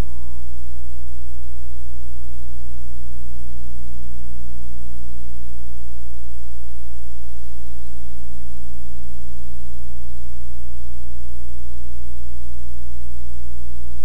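Loud, steady electrical mains hum with a stack of its overtones and a faint hiss, the hum of an old video-tape transfer. A thin steady tone stops about half a second in.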